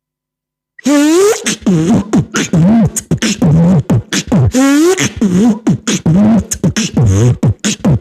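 Beatboxer's mouth-made imitation of a zipper sound effect: about a second in, a rapid run of pitched vocal glides bending up and down, broken by many short sharp clicks and hisses.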